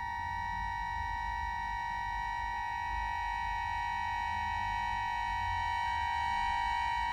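Solo accordion holding a high, sustained cluster of reed tones, steady apart from small shifts in the held notes partway through.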